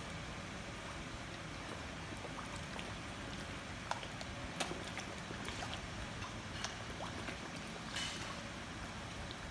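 A crowd of koi churning the pond surface: steady splashing and lapping water, with a few sharp smacks as fish break the surface.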